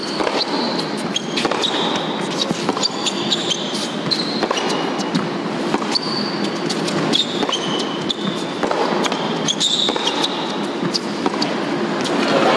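Tennis rally on an indoor hard court: repeated sharp racket-on-ball strikes and short high squeaks of tennis shoes on the court, over steady crowd noise in the arena.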